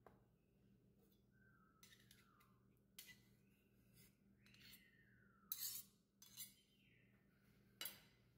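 A fork stirring egg salad in a ceramic bowl, clinking and scraping against the bowl, with short scraping squeaks that slide down in pitch. Several sharp clinks; the loudest come a little past halfway and near the end.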